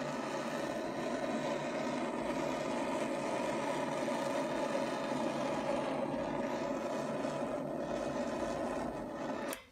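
Handheld gas torch burning with a steady hiss as its flame is passed over wet acrylic paint; the flame cuts off just before the end.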